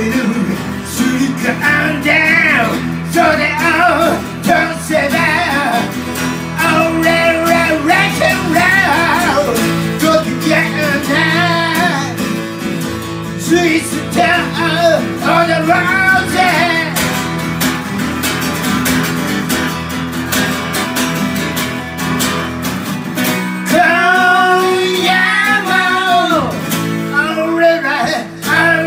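Live acoustic duo: a black acoustic guitar and an orange hollow-body guitar strummed together while a singer sings lead into a microphone. The singing pauses for a few seconds past the middle while the guitars play on, then comes back.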